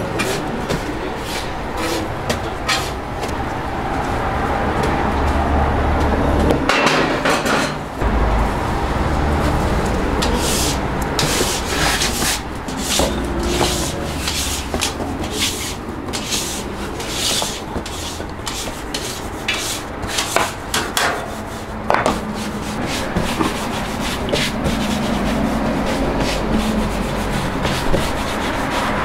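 Hands working hotteok dough on a flour-dusted wooden board: dough rubbed and pressed against the wood, with many sharp taps and knocks, and a wooden rolling pin rolling a round flat near the end.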